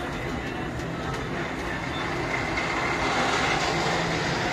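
Steady mechanical rumble and din of a fairground heard from a turning Ferris wheel, growing a little louder about halfway through.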